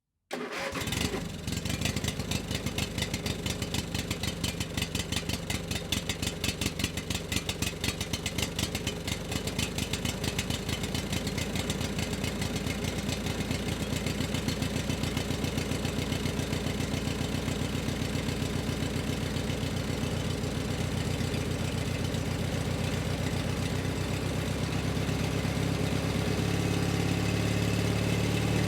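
Engine running with a rapid, even pulsing beat that slowly quickens and grows louder, the sound starting abruptly at the very beginning.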